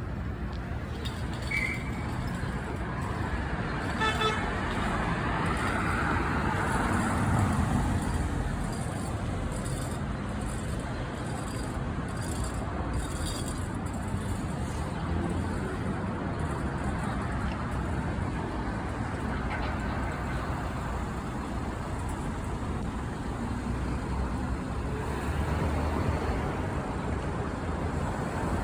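Orion diesel city bus running along the road, heard from inside: steady engine and loud cooling fan noise with a low rumble that swells a little now and then. A short horn-like tone sounds about four seconds in.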